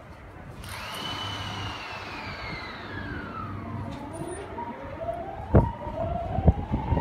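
JR 209 series electric train's inverter and traction motors whining as it pulls away: a tone that starts about half a second in and glides down, then a tone that rises steadily as the train gathers speed. A sharp knock comes about five and a half seconds in.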